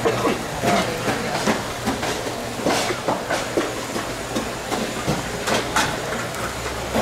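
Kitchen clatter: irregular sharp clicks and knocks, several a second, over a steady low hum.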